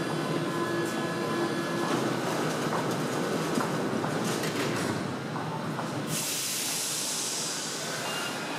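Paris Métro train pulling out of the platform, a steady running rumble. A loud hiss switches on abruptly about six seconds in and continues.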